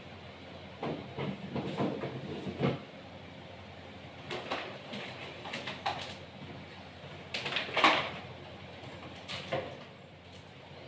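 Kitchen clatter: irregular short knocks and rattles in clusters, loudest about eight seconds in, over a steady low hiss.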